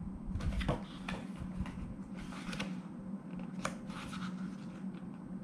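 Pages of a glossy album photo book being turned and handled: irregular papery rustles and a few crisp flicks.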